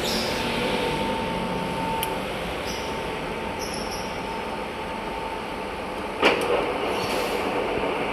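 Baoji CS6266B engine lathe running steadily, with a sharp knock about six seconds in.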